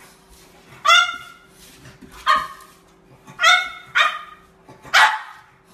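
French bulldog barking five times, short high barks about a second apart, the fourth coming quickly after the third.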